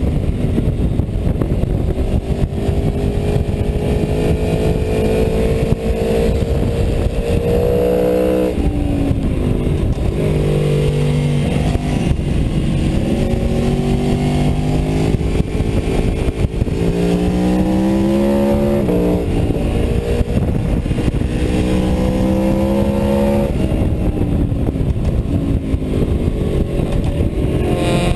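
Aprilia Tuono V4's V4 engine at high revs on track, heard from a camera mounted on the bike. The engine pitch climbs for several seconds as it accelerates, then drops sharply each time the rider shuts off and brakes for a corner, three times.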